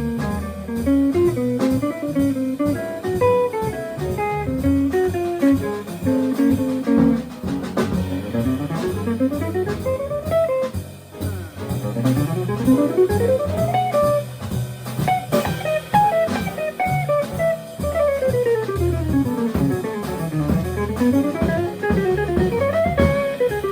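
Jazz quartet of guitar, piano, bass and drums playing, the guitar out front in fast runs of single notes that climb and fall, over a walking bass line and drums.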